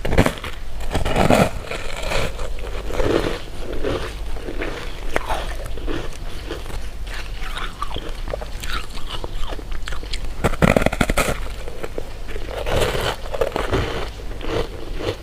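Close-miked eating of sweets: bites and chewing with crunchy, crackling bursts, heaviest in a few clusters, such as at the start and around two-thirds of the way in.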